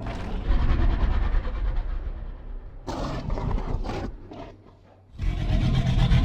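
Giganotosaurus growl sound effects: a deep growl, a shorter harsher call about three seconds in, then another deep growl starting near the end. They are built from recorded animal calls such as stallions, a lion and alligator bellows.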